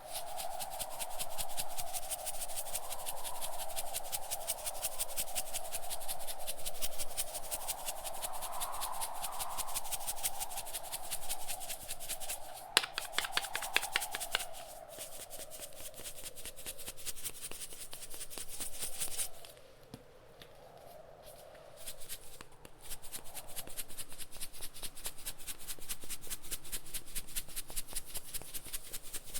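Rapid, even tapping, a quick run of clicks over a howling wind sound, with a louder burst of taps about halfway through and a short lull a few seconds later.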